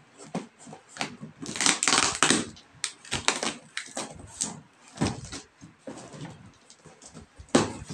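Parcel packaging being unwrapped by hand: crinkling and rustling with scattered clicks. The rustle is loudest about two seconds in, and there is a sharp click near the end.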